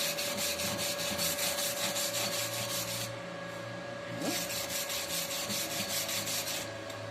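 Wire brush scrubbing a stick-welded bead in quick back-and-forth strokes, about six a second, clearing slag between passes; the strokes stop for about a second and a half in the middle and then resume. A steady hum runs underneath.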